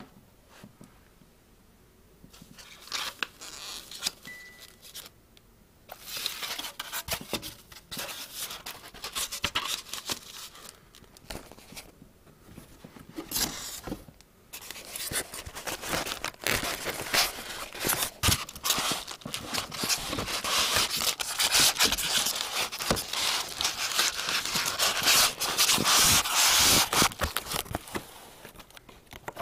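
Close rustling, crinkling and scraping of packing material and a cardboard box as a snow globe is packed away. It is quiet at first, then comes in irregular crackly bursts that grow denser and louder through the second half, dying down near the end.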